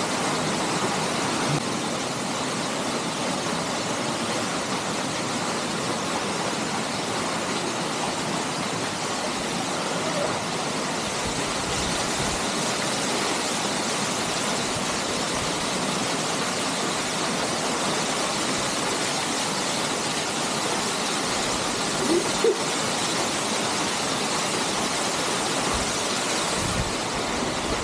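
Waterfall rushing close by: a steady, even hiss of falling water that does not change, with one brief faint higher sound about 22 seconds in.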